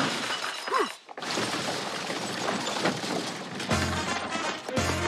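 Cartoon sound effects: a sudden shattering crash, a short falling whistle, then a long dense clatter that gives way to music with low notes near the end.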